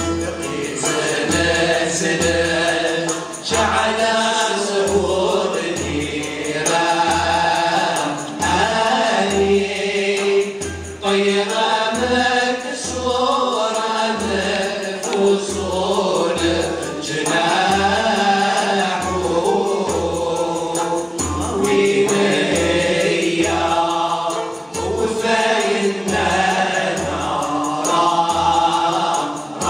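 Andalusian music ensemble singing together in unison, accompanied by oud, mandole and violas played upright on the knee, over a steady low beat.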